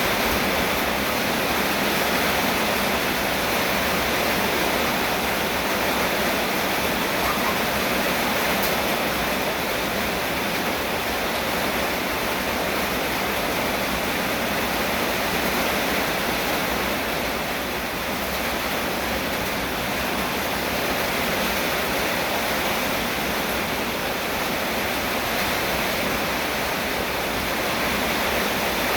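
Heavy rain falling steadily, a dense even hiss with no gaps or single drops standing out.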